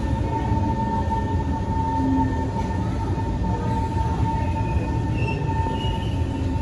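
Kawasaki C151 metro car heard from inside while moving: a steady low rumble of wheels on track with a steady high whine held throughout.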